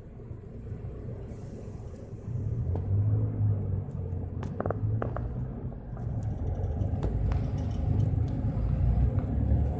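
Mercedes-Benz Citaro Facelift city bus engine heard from inside the cabin, running low at first, then getting louder from about two seconds in as the bus pulls away. A few clicks and rattles come from the cabin around the middle.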